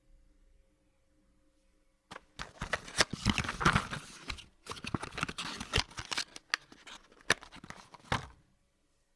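Cardboard box being handled: a run of scraping and crinkling with many sharp knocks, starting about two seconds in and ending with a final knock some six seconds later.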